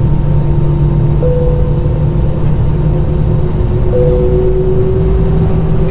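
Jet airliner's engines heard inside the cabin, a steady loud hum with several held tones, one creeping slowly upward in the second half as the engines spool up for the takeoff run.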